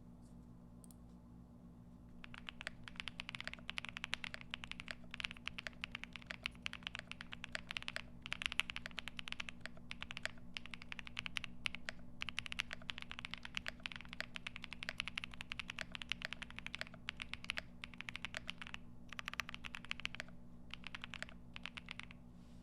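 Typing on a Capsule 65 mechanical keyboard with lubed Boba U4T tactile switches and GMK ABS keycaps: a rapid, dense run of keystrokes starting about two seconds in, with brief pauses around the middle and near the end.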